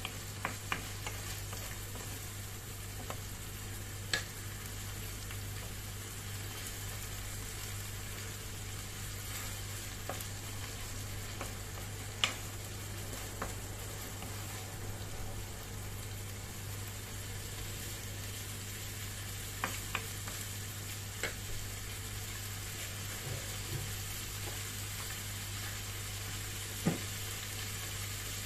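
Corned beef with onions and garlic sizzling steadily in a frying pan, with a handful of short sharp taps as a wooden spatula stirs it and knocks the pan, over a steady low hum.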